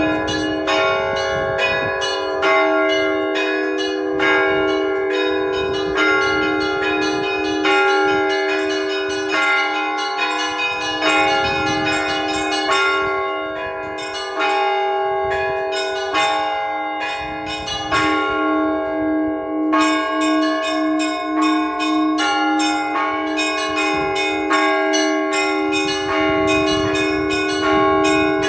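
Russian-style church bell ringing (zvon) played by a single bell-ringer: small treble bells struck in quick rhythmic patterns over the steady, long ringing of the larger bells. The quick high strikes thin out briefly about halfway through and again about two-thirds through, then resume.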